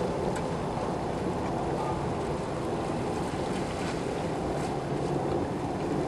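Steady wind and sea noise by the water's edge, with a low rumble underneath.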